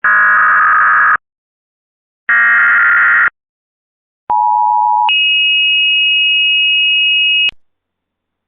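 Emergency Alert System header data bursts: two harsh one-second buzzing bursts a second apart. Then the EAS two-tone attention signal, a steady dual tone that holds for under a second and jumps to a much higher pitch for about two and a half seconds before cutting off.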